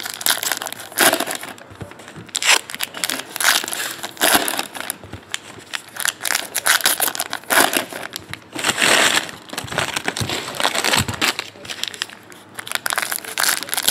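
Plastic trading-card pack wrappers being crinkled and torn open by hand, in irregular rustling bursts, with cards being handled.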